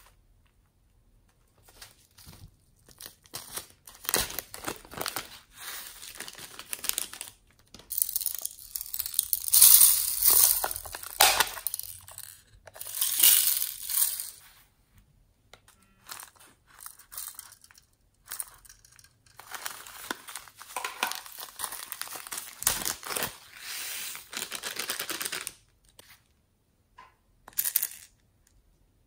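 Irregular bursts of crinkling, crackling noise, loudest about ten and thirteen seconds in, with short quiet gaps between.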